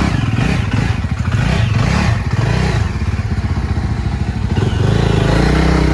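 Yezdi Adventure motorcycle's single-cylinder engine revving up and falling back in repeated throttle surges on a rough off-road trail, with clattering and knocks from the bike over the uneven ground.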